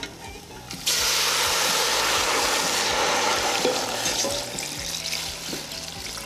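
Water poured from a saucepan into a stainless steel pot of dried chiles, splashing onto them. The pour starts suddenly about a second in, runs steadily, and eases off toward the end.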